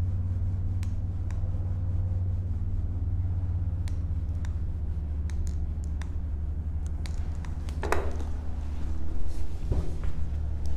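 Steady low room hum or rumble, with a few light clicks and a brief faint voice about eight seconds in.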